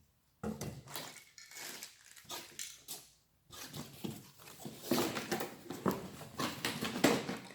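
Irregular clicks, knocks and rustling from a new circular saw and its accessories being handled and unpacked, growing busier about halfway through.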